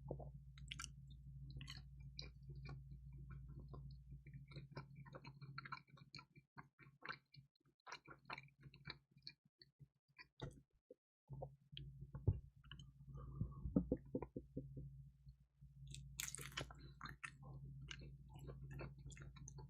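Close-miked chewing and biting of crispy, cheesy pizza: soft crunches and small wet mouth clicks, with a louder crunch about three quarters of the way through. A steady low hum runs underneath and drops out for several seconds in the middle.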